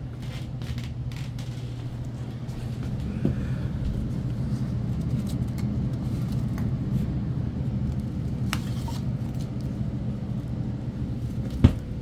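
A steady low machinery hum that grows louder over the first few seconds and then holds. A single sharp knock comes near the end.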